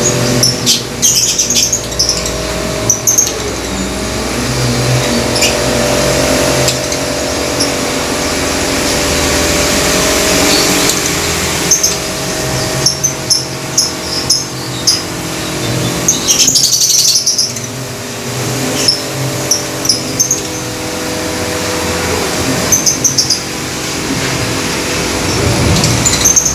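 Several caged lovebirds calling in clusters of short, sharp, high-pitched chirps and chattering bursts. A steady mechanical hum runs underneath.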